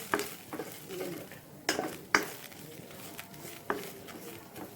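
A stirring utensil clinking and scraping against a frying pan as onion and chili are stirred in oil, with several sharp clinks spread irregularly through the stirring.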